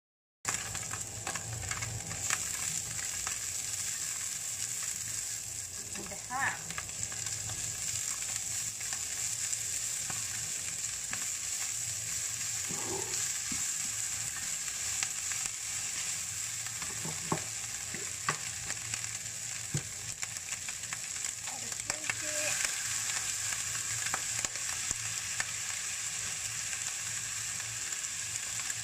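Sliced leek, canned bluefin tuna and diced ham sizzling in olive oil in a non-stick frying pan, with a steady frying hiss. A spatula stirs and scrapes the food, tapping the pan now and then.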